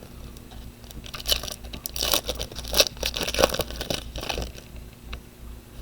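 Baseball trading cards being handled and flipped through: a quick run of light scrapes and clicks as cards slide against each other, busiest in the middle.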